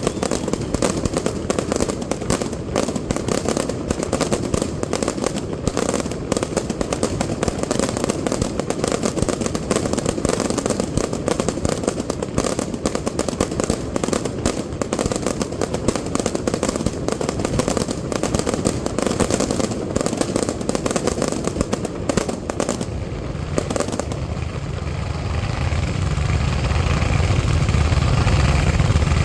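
Fireworks display: a dense, rapid crackling barrage of many small reports a second. About three-quarters of the way through it gives way to a deeper rumble of heavier bursts that grows louder to the end.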